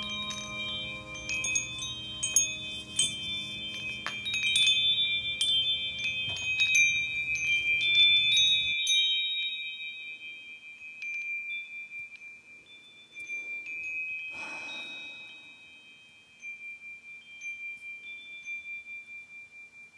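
Chimes ringing: many high metallic strikes that ring on, over a low sustained tone that stops about nine seconds in. After that the strikes thin out, leaving one high tone lingering.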